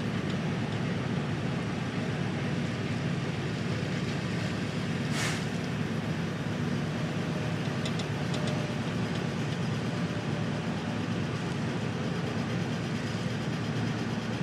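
Steady mechanical rumble of a cementing pump truck with its air compressor engaged, blowing air through the treating iron to clear water from the line, with a brief hiss about five seconds in.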